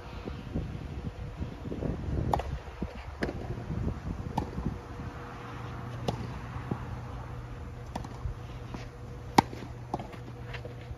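Tennis rally: a tennis ball struck by rackets and bouncing on the court, giving a sharp pock every second or two. The loudest is near the end, when the near player hits. A steady low hum runs underneath from about three seconds in.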